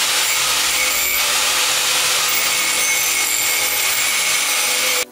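Angle grinder with an abrasive disc grinding the steel face of an old axe head, a loud steady grinding hiss with sparks flying off the metal. It cuts off suddenly near the end.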